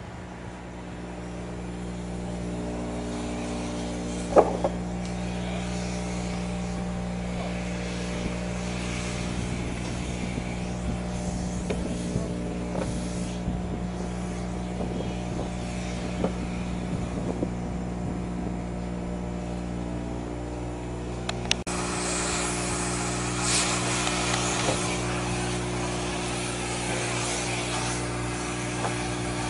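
A machine engine runs steadily at a constant pitch, with a few sharp clicks. About two-thirds of the way in, the sound changes abruptly and a steady hiss joins it, fitting a cutting torch working on the old bridge's steel beams.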